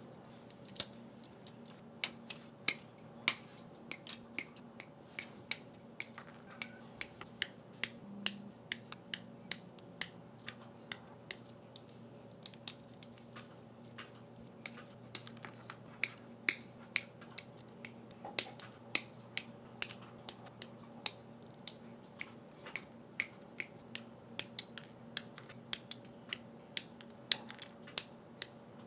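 Sharp plastic clicks and snaps from a plastic model kit being assembled, its parts clipped and pressed together, coming irregularly at about one to three a second over a faint steady hum.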